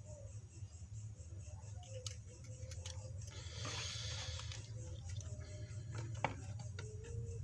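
A few faint clicks and a brief rustle of handling noise over a steady low hum.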